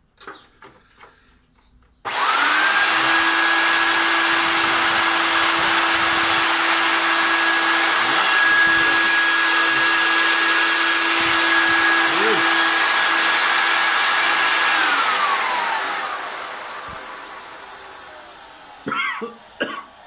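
Large carpet vacuum cleaner's motor switched on about two seconds in, running with a loud rush of air and a steady high whine for about thirteen seconds: a test run showing the repaired machine works again. It is then switched off and winds down, its whine falling in pitch as it fades.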